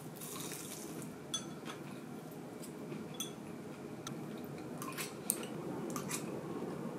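Ceramic tableware clinking lightly during a meal: a scatter of small taps and clicks, a few with a short ring, and one sharper click a little after five seconds.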